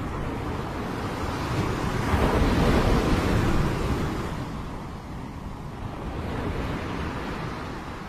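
Small waves breaking and washing up a pebble beach: one wave surges about two seconds in, swells and fades back, over a steady low rumble of surf.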